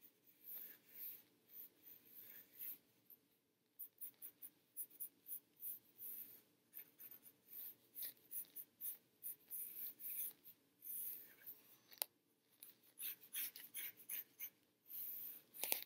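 Pencil sketching on sketchbook paper: faint, quick scratchy strokes in irregular runs, with a short pause about four seconds in.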